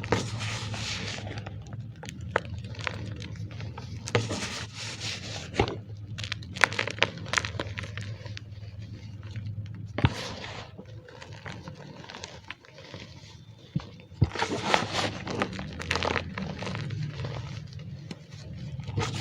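Gym chalk mixed with cornstarch being squeezed and crushed by hand: bursts of crunchy, squeaky crumbling with sharp cracks, over a low steady hum.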